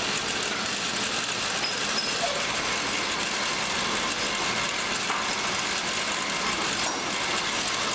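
Metal lathe running with a steady mechanical noise from its motor and gearing. A single short click comes about seven seconds in.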